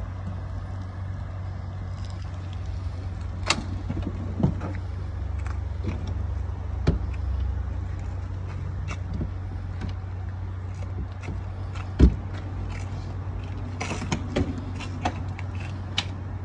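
Scattered clicks and knocks of RV exterior hardware being handled over a steady low hum. The loudest is a sharp knock about twelve seconds in, and a quick run of clicks near the end comes as the entry door hardware is worked.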